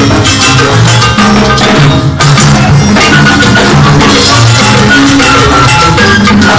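Live salsa band playing, with timbales, congas, maracas and flute over a steady Latin rhythm. The music drops out for a brief break about two seconds in, then comes straight back in.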